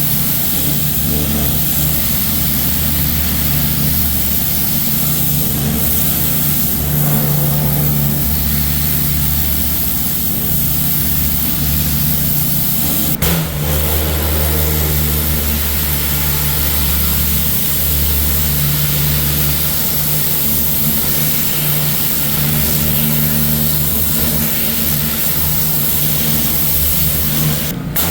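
A pressure washer running steadily: a constant motor hum under a broad hiss of water spray. It breaks off briefly about 13 seconds in and again near the end.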